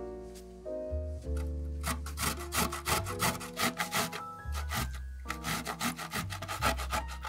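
Pickled gherkins being grated on the fine side of a stainless steel box grater: rhythmic rasping strokes, about three a second, starting about two seconds in, with a brief pause after the middle. Background music plays throughout.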